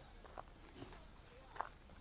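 Faint footsteps of a person walking along a paved path: a few short, uneven steps over quiet open-air background noise, the loudest step about a second and a half in.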